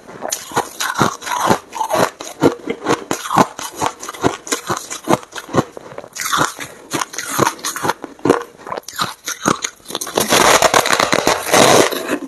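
Mouthful of crumbly, snow-like frost ice being chewed: a rapid run of crisp crunches, several a second, turning into a denser, louder stretch of crunching near the end.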